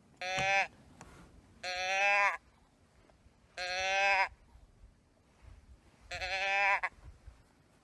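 Four drawn-out, nasal bleats, about two seconds apart, each bending slightly down in pitch.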